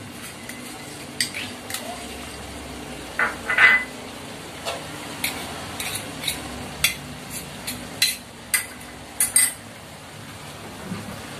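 Metal spatula scraping and clanking against a steel wok while stirring a thick mix of diced pork, potatoes and carrots. The knocks come irregularly, the loudest about three to four seconds in and another run of them in the second half.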